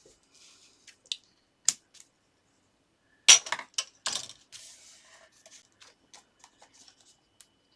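Double-sided tape and card being handled on a craft desk: irregular sharp clicks, taps and crackles. The loudest come as a cluster about three seconds in, followed by a run of small ticks.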